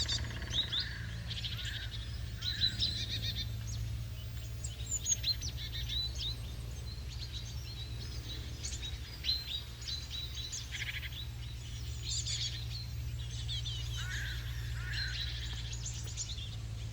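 Small birds chirping and calling, many short quick high notes one after another, over a steady low hum.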